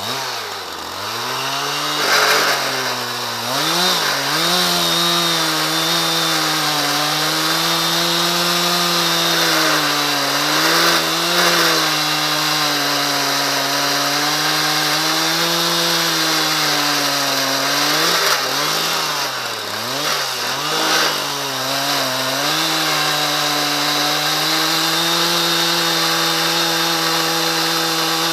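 Husqvarna 372 XPG two-stroke chainsaw with a ripping chain, revving up and running at high speed while milling lengthwise through a dry, hard ash log. Its pitch dips briefly under load a few times, about two and four seconds in and again around two-thirds of the way through, then recovers.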